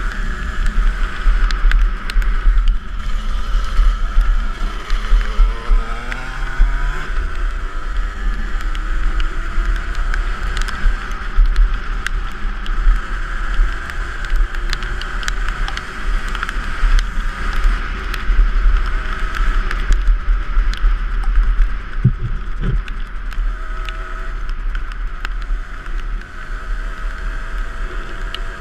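Two-stroke dirt bike engine revving up and down while riding, its pitch rising and falling, under heavy wind rumble on the action camera's microphone.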